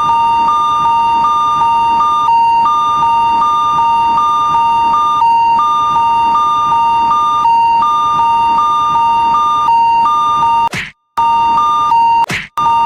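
Electronic railroad-crossing warning bell ringing: a steady tone with a higher tone chiming in about twice a second, broken off twice briefly near the end.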